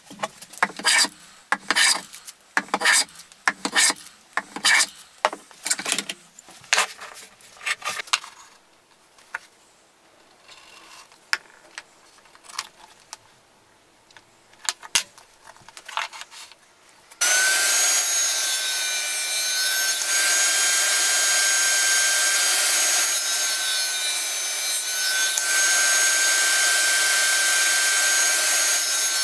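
Hand plane strokes shaving wood, about two a second, dying away after several seconds. About two-thirds of the way in, a table saw starts and runs steadily with a constant high whine, the loudest sound here.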